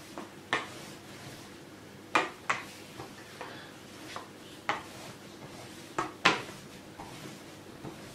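Rolling pin being pushed back and forth over a sheet of buttered croissant dough on a floured table, giving irregular sharp clacks a second or two apart, some in quick pairs.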